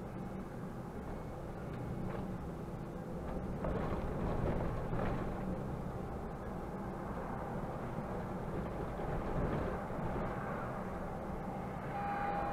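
Mercedes-Benz Conecto city bus's diesel engine and drivetrain heard from the driver's cab, running steadily with road noise and getting louder a few seconds in as the bus pulls away and gathers speed. A brief steady tone sounds near the end.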